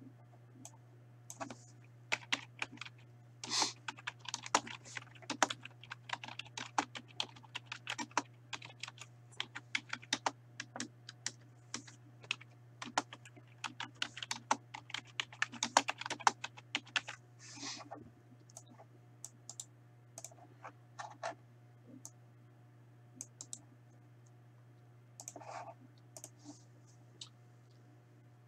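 Typing on a computer keyboard in quick runs of keystrokes, dense for most of the first two-thirds and then sparser, over a steady low hum.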